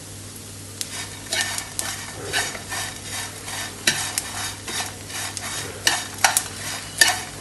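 Chopsticks tossing crisp, dry-roasted small dried fish in a frying pan: dry rustling and scraping strokes a couple of times a second, starting about a second in, with a few sharp clicks of the chopsticks against the pan near the end.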